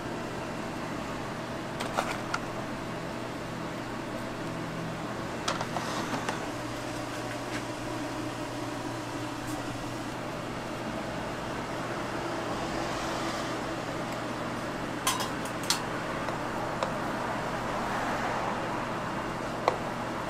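Steady hum of kitchen machinery with a few sharp clicks and clinks of utensils and plastic containers as a crepe is filled and folded.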